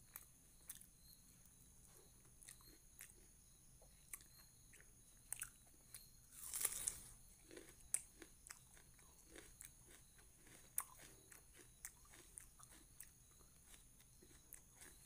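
Faint close-miked chewing and mouth sounds of a person eating rice and chicken by hand: soft, wet, irregular clicks. About six and a half seconds in comes one louder, longer noisy sound.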